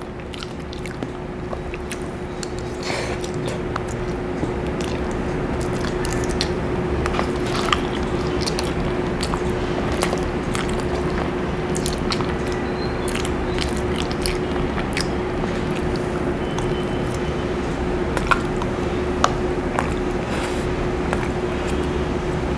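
Eating sounds: a plastic fork clicking and scraping in a paper tray of spaghetti, with biting and chewing, over a steady background hum.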